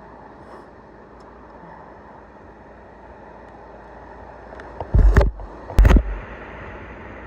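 Steady wash of ocean surf, with two loud rumbling bumps on the microphone about five and six seconds in.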